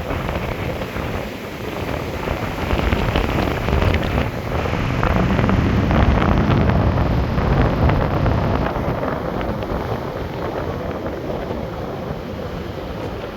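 Big ocean waves breaking and surf rushing, with wind buffeting the microphone. The surf swells to its loudest in the middle and eases off toward the end.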